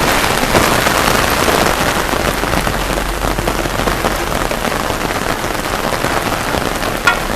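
Heavy downpour: rain pouring down and hitting surfaces in a steady hiss. Two sharp knocks come near the end.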